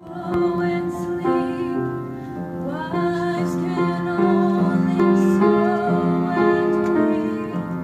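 A young woman singing solo, holding sustained notes with vibrato, accompanied by piano.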